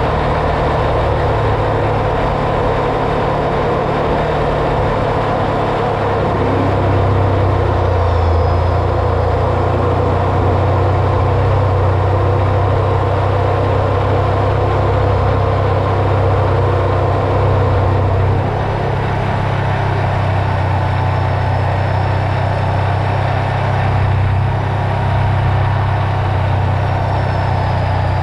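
Can-Am Renegade ATV's V-twin engine running at a steady riding speed, with the tyres rolling over a gravel road. The engine eases off slightly about two-thirds of the way through.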